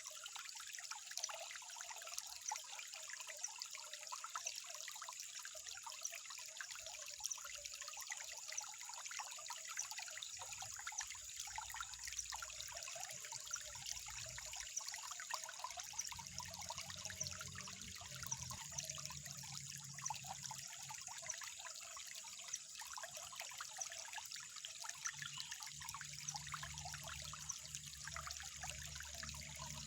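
Water trickling steadily, a continuous fine splashing and gurgling. A faint low hum comes in about a third of the way through and grows a little stronger after the midpoint.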